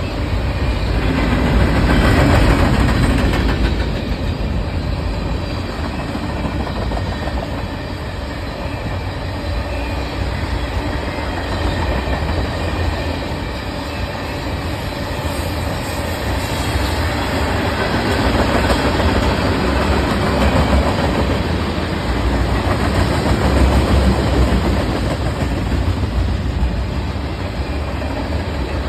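Freight train rolling past, its wheels rumbling and clacking steadily over the rail joints.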